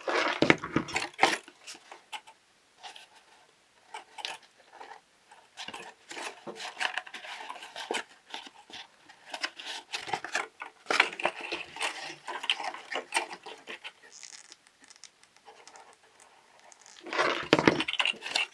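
Folded paper pieces handled and pressed together as their glued tabs are joined: irregular crinkles, taps and rustles in several short clusters with quieter gaps between.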